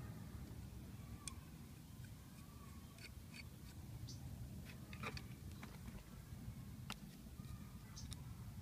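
Screwdriver turning small screws on an alternator's rectifier and brush holder: faint scattered metal clicks and scrapes, with a steady low background rumble.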